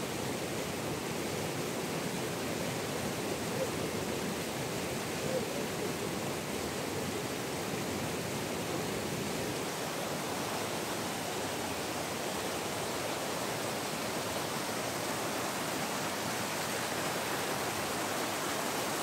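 River rapids rushing over boulders: a steady, even rush of white water.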